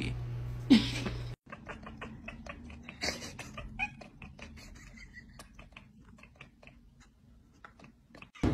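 A short loud knock near the start, then a cat chattering: rapid soft clicks and brief high chirps that fade away over the following seconds.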